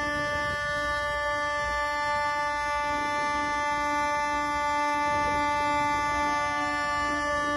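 A ship's horn sounding one long, unbroken blast over a low rumble of wind and water.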